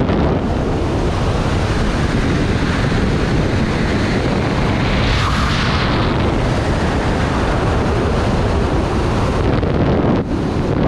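Loud wind buffeting and rushing over the camera microphone during a parachute descent, with a gust that brightens the hiss about halfway through.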